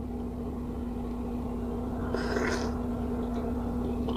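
Quiet mouth sounds of someone chewing noodles, with one short, soft wet mouth noise about two seconds in, over a steady low hum.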